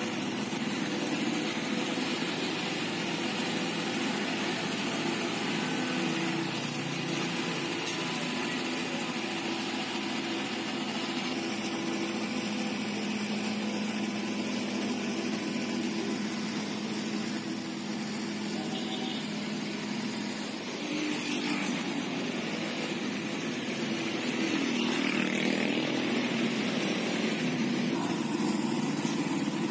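Diesel engines of road construction machinery, such as an asphalt paver and rollers, running steadily, growing a little louder near the end.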